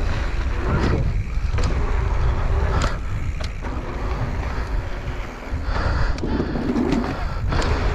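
Mountain bike riding fast over a hard-packed dirt jump line: heavy wind buffeting on the microphone over the rolling tyres, with several sharp knocks from the bike along the way.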